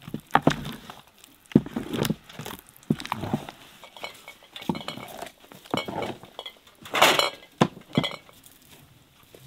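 Kitchen dishes and utensils clinking and knocking against each other in a string of separate sharp clinks. About seven seconds in there is a longer clatter with a brief ringing.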